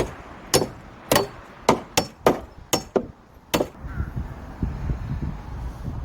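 Repeated hammer blows on timber, about eight strikes at roughly two a second, during the assembly of a wooden frame. The blows stop about three and a half seconds in, leaving a low rumble.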